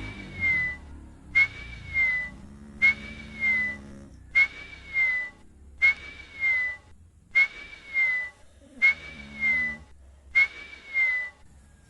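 Sleeping snorer's breathing with a high whistle through the nose on each breath, eight times at an even pace of about one every second and a half. Each whistle starts sharply, wavers, then dips at its end, and a lower, rougher breath sounds between them.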